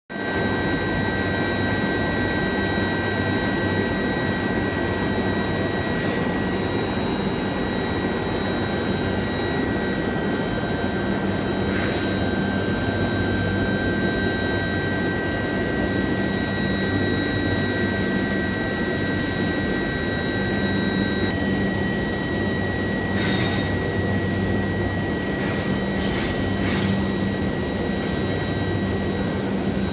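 Steel-bar induction hardening and tempering line running: a loud, steady industrial drone and hum with several steady high-pitched whines, one of which cuts out about two-thirds of the way through. A few short knocks sound near the end.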